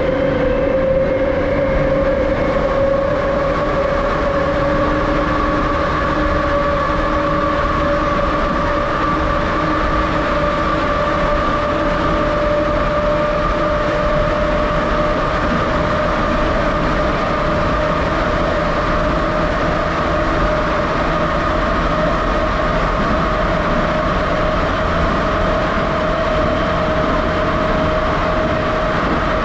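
Interior of a moving 81-717.6 Moscow Metro car: steady running noise of the wheels on the rails, with a whine from the traction drive whose two tones slowly rise in pitch.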